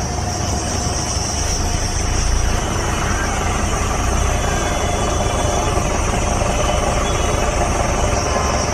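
A vehicle engine running steadily at low revs, with a continuous high insect shrill, like crickets, over it.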